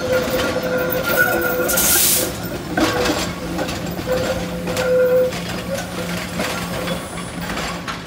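Kawasaki light rail trolley rolling slowly around a tight street-track curve, its wheels squealing against the rails in a steady high tone that comes and goes. Sharp clacks sound as the wheels cross the junction trackwork, and a brief hiss comes about two seconds in.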